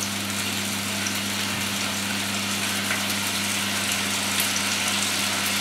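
Potatoes frying in oil in a pan, a steady sizzle over a low steady hum.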